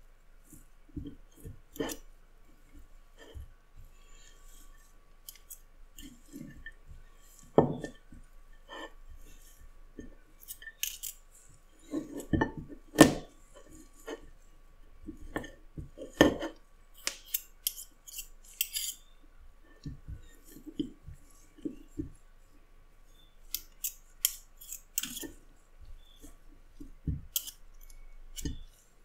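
Two metal forks clinking and scraping against a ceramic plate as they pull apart a block of carnitas, in irregular taps with a few louder knocks around the middle.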